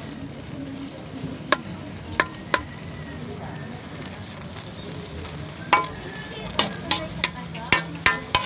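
Metal ladle clinking and scraping against a metal wok while stirring anchovies and shallots in coconut milk, over a steady sizzle. A few clinks come in the first seconds, then a quick run of them from about six seconds in.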